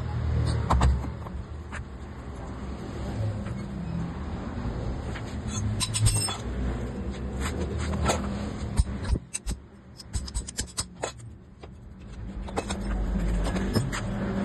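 Metal clinks and taps as a Hero iSmart motorcycle cylinder head is handled and worked with a steel rod, over a steady low vehicle rumble.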